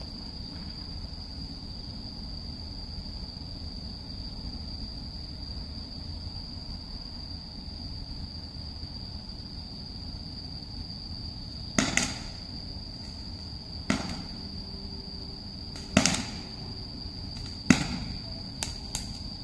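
Fireworks going off: about six sharp bangs at uneven intervals, starting about twelve seconds in, with two close together near the end. Before the bangs, only a steady high trill of insects.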